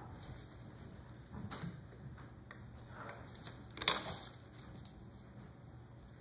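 Faint bench handling sounds: paper and thin wood pieces being shifted by hand, with one sharp click about four seconds in as a wood-handled chisel is taken up from the tool tray, over a faint steady hum.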